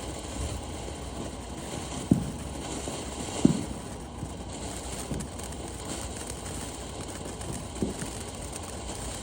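Fireworks going off at a distance: a few short, dull bangs, the loudest about two and three and a half seconds in, over a steady outdoor hiss.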